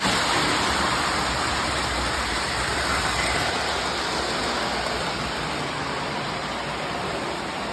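O-scale model train running across a metal truss bridge: a loud, steady, even rolling noise that cuts off abruptly at the end.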